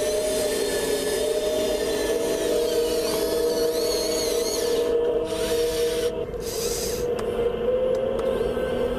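Electric servos and motors of a Kabolite 970 all-electric RC excavator running with a steady hum, with high-pitched whines that waver in pitch and cut in and out several times as the arm and grapple move.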